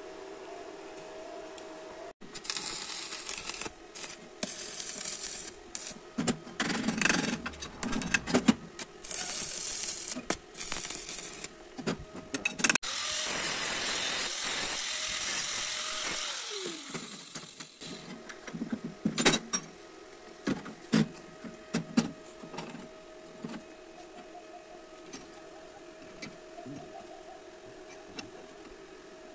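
Angle grinder cutting steel in bursts for about fifteen seconds, ending in a long steady cut that winds down with a falling pitch. Before it, a small electric diaphragm air compressor runs steadily. After it come several sharp metallic clicks and knocks.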